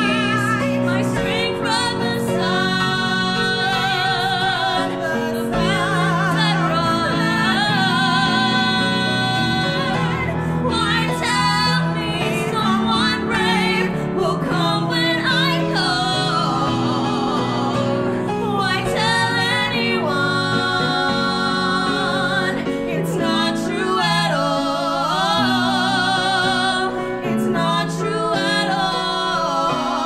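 Two female voices singing a Broadway-style duet, wavering with vibrato on held notes, over live piano accompaniment.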